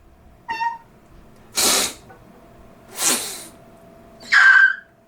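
A woman making odd little vocal noises: a short squeak, then two short breathy bursts, then a higher squeaky cry near the end.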